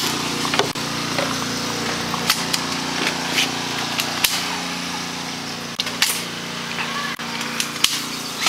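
Scattered single airsoft gun shots, short sharp snaps about a second or two apart, over a steady low mechanical hum.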